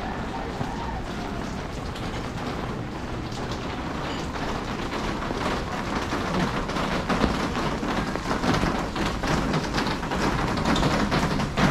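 Rain falling, a steady hiss dotted with many small drop taps, growing louder about halfway through.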